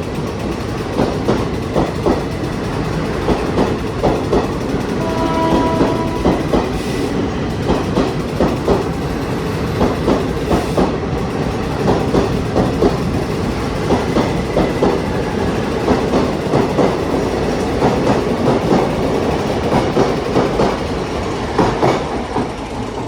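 Coaches of a long-distance passenger express rolling past a station platform, the wheels clacking over rail joints in a steady run of knocks. A brief pitched tone sounds about five seconds in.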